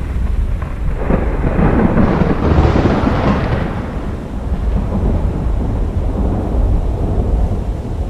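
A peal of thunder over a steady low rumble of stormy wind and sea. The thunder swells about a second in, is loudest around two to three seconds, and dies down by about four seconds.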